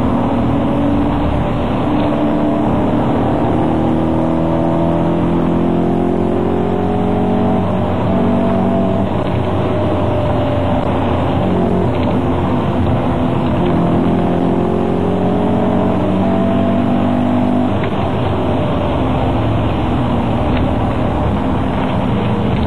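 Performance car's engine under hard acceleration, heard from inside the cabin: its note climbs in pitch and drops back several times as it shifts up through the gears, over steady road noise.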